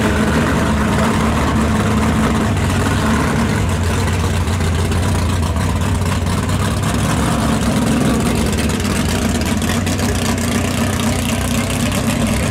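Big V8 engine of a 1960s super stock drag car, a red 1962 Dodge, idling steadily as the car creeps along at low speed.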